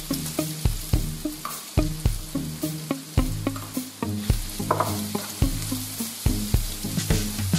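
Diced pork and sausage sizzling in a nonstick frying pan, with a plastic spatula stirring and scraping through the pan in quick repeated strokes.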